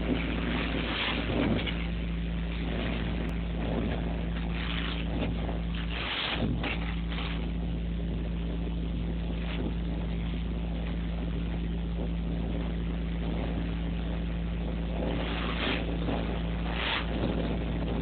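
Industrial vacuum sucking sand through a large corrugated suction hose: steady rushing of air and sand over a constant low machine hum, with brief louder surges of rushing a few times.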